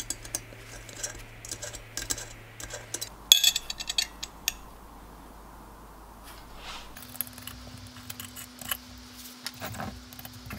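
Small metallic clicks and scrapes of a 3 mm Allen key working screws out of a diesel heater's aluminium burner housing, with a louder clatter of metal about three seconds in.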